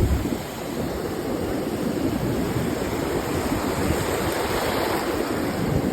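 A steady rushing noise of ocean surf and wind, with low rumbling from wind buffeting the microphone.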